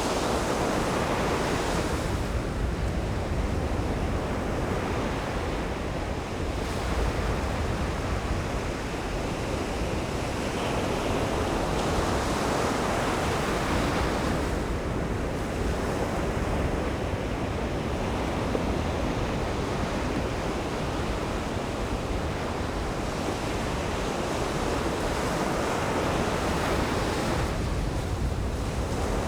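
Ocean surf breaking and washing up a sandy beach: a continuous rush that swells louder and brighter every twelve seconds or so as each wave comes in.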